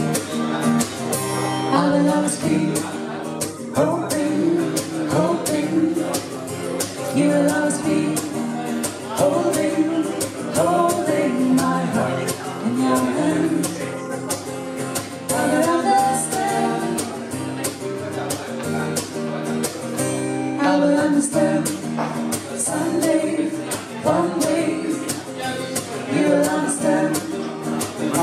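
Strummed acoustic guitar in a steady rhythm, accompanying a man and a woman singing together.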